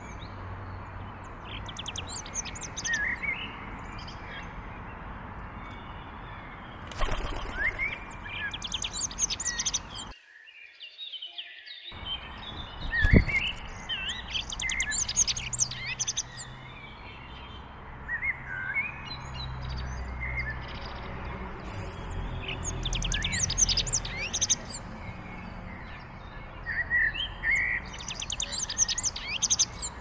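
Small garden songbirds chirping in repeated bursts of quick, high notes over a steady low background hum. There is a single sharp click about thirteen seconds in.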